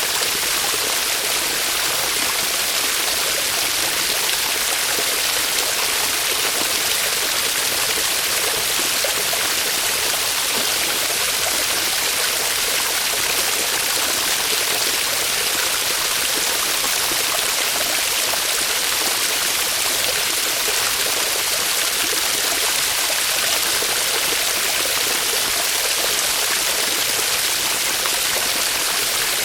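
Small waterfall splashing steadily, a continuous even hiss of falling and running water.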